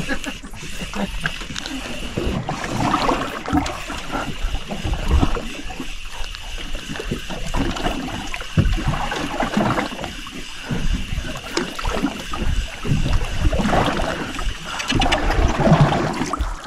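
Sea water sloshing and splashing against the side of a fishing boat, over a thin steady high-pitched whine that stops near the end.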